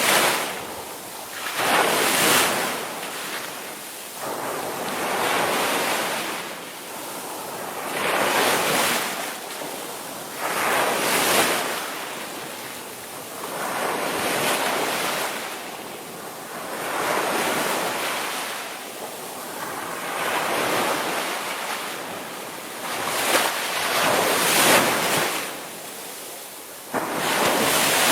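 Ocean surf: waves breaking and washing in a steady cycle, swelling and falling about every two to three seconds, with a hiss of wind on the microphone.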